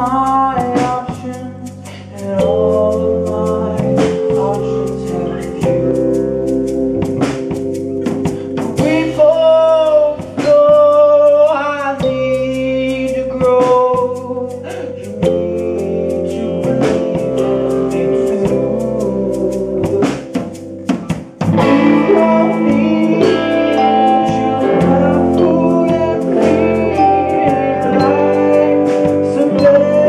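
Live rock band playing a song: a man singing over electric guitars, bass guitar, drum kit and keyboard. The band gets fuller about twenty seconds in.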